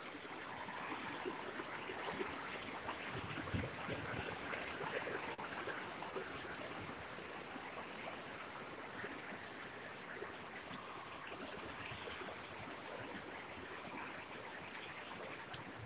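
Heavy rain pouring steadily on trees and grass, an even hiss that grows a little louder a few seconds in.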